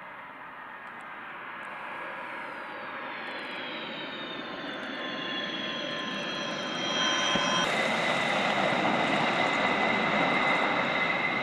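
Twin turbofan engines of a Sukhoi Su-34 on landing: a jet whine that grows steadily louder as the aircraft comes in, its high tones sliding slowly down in pitch. About eight seconds in it steps up suddenly to a louder, fuller engine sound as the jet rolls out on the runway.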